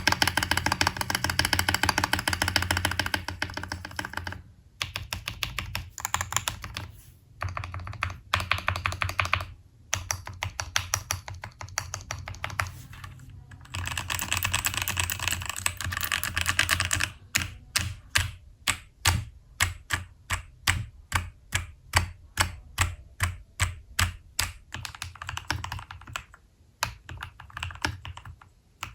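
Mechanical keyboard fitted with Glorious Lynx linear switches being typed on. It starts with several runs of fast typing separated by short pauses, then slows to single key presses at about two a second, and speeds up to quick typing again near the end.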